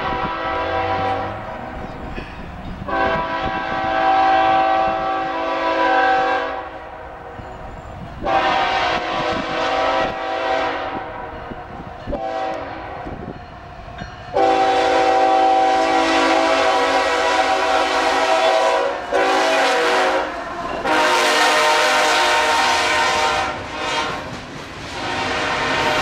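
CSX diesel locomotive's air horn sounding at a grade crossing: two long blasts, a short one, then a long held one as the train reaches the crossing, more loud blasts following. Near the end the coal cars roll past.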